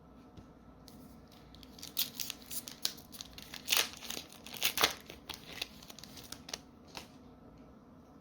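Foil wrapper of a Magic: The Gathering booster pack being torn open and crinkled: a run of sharp rips and rustles lasting about six seconds, loudest near the middle.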